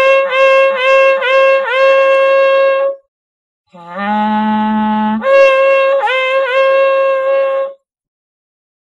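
Horn-like wind instrument sounding in two blasts. Each blast has a low held note that jumps up to a higher note cut into quick pulses, about three a second. The first blast ends about three seconds in; the second starts under a second later and cuts off near the end.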